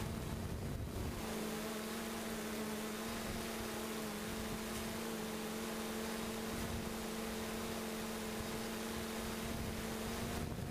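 3DR Solo quadcopter's motors and propellers humming at a steady pitch, picked up by the camera mounted on the drone. Wind rumbles on the microphone for about the first second and again just before the end, covering the hum.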